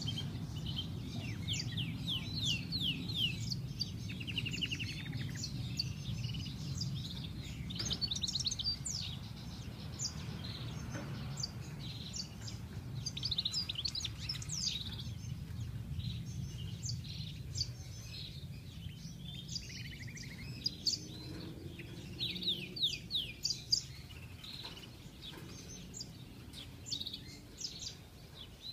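European goldfinch singing: a rapid, twittering run of high chirps and quick trills, with a buzzy note a few seconds in and again about two-thirds of the way through. A steady low rumble runs underneath.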